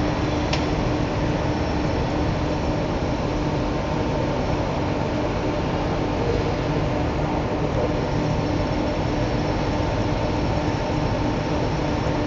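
Heavy-duty aluminium rod breakdown (wire drawing) machine running: a loud, steady mechanical drone with a constant hum, and a single brief click about half a second in.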